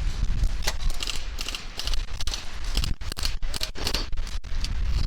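Airsoft electric guns firing short rapid bursts, heard as runs of quick sharp clicks, over a steady low rumble.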